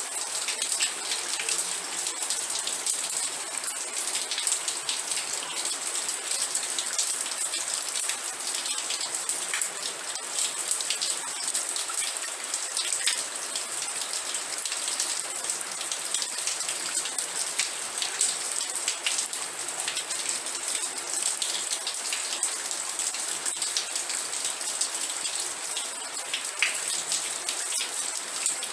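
Steady rain with dense, fine drops pattering on a surface, an even hiss heavy in the treble.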